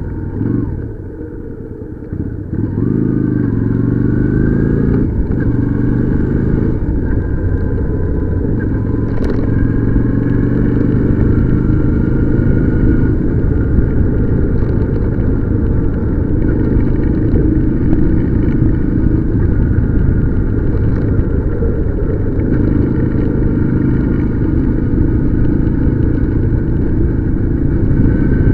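Motorcycle engine running while riding: it drops back briefly near the start, then picks up with its pitch rising through the gears about two to five seconds in, and carries on at a steady cruising speed.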